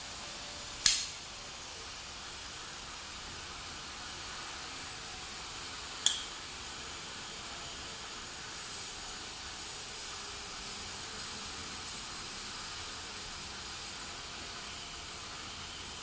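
CRKT Butte folding knife's blade being flicked and snapping into position: two sharp metal clicks, one about a second in and one about five seconds later, the second with a short ring.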